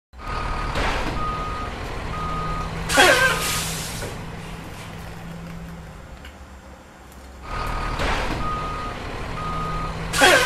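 Truck sound effect: a diesel truck engine running with its reversing alarm beeping, then a sharp hiss of air brakes with a falling squeal. The sequence plays twice, the second time starting about seven and a half seconds in.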